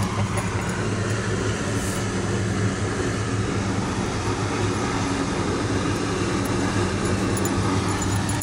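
A steady low mechanical drone with a constant hum, like an engine or machinery running without change.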